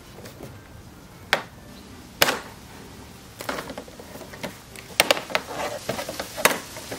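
Irregular sharp plastic clicks and knocks as a moped's plastic body trim panel is handled and pried loose with a screwdriver, a few scattered at first and coming more often in the second half.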